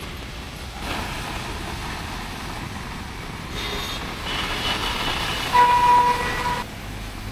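Rainy city street with passing traffic, vehicle horns honking over the hiss; the loudest is one horn blast of about a second, three-quarters of the way through.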